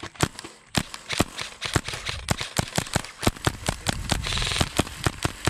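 Airsoft rifles firing: a rapid, irregular string of sharp pops, several a second, with a brief hiss about four seconds in.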